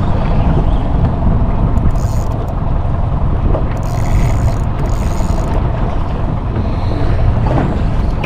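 Steady low wind rumble on the microphone aboard a small fishing boat at sea, with a few brief higher hisses about two and four seconds in.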